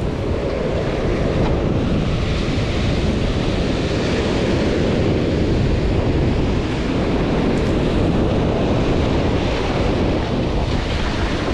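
Ocean surf breaking and washing up the beach, a continuous loud rush, with wind buffeting the microphone.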